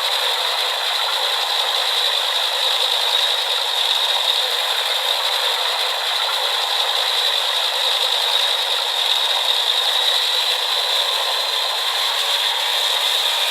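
Steady, unbroken mechanical rattling and clatter of a running machine, thin-sounding with no low rumble.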